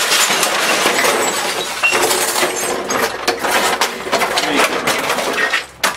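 Broken plastic casing and innards of a smashed Magnavox CRT television crunching, cracking and clattering on concrete as they are stomped on and pulled apart: a dense, unbroken run of cracks and scrapes.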